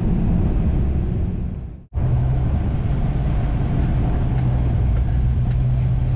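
Steady road and engine noise inside the cab of a moving pickup, fading out just under two seconds in at a cut. After the cut, another steady engine hum with a single low pitch and faint scattered ticks.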